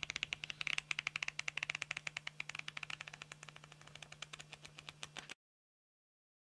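Pages of a Post-it note pad flip book flicking off a thumb in a fast run of ticks, more than ten a second, slowing slightly and growing fainter, then cutting off suddenly about five seconds in.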